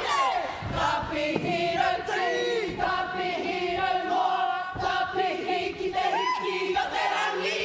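Kapa haka group singing and chanting together in unison, with long held notes and some sliding calls above them.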